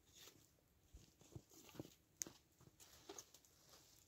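Quiet, faint footsteps in snow with a few light knocks, and one sharp tick a little over two seconds in.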